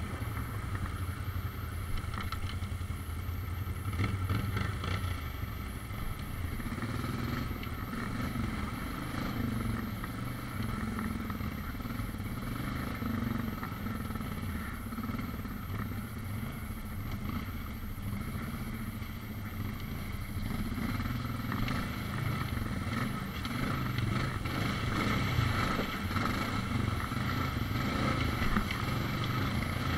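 ATV engine running steadily under way on a dirt trail, growing a little louder near the end.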